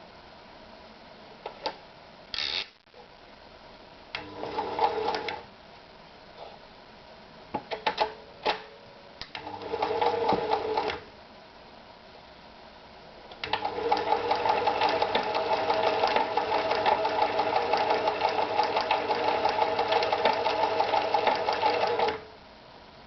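Privileg Super Automatik TopStar 796 sewing machine stitching: a few clicks and two short runs, then a long steady run of about nine seconds that stops abruptly near the end.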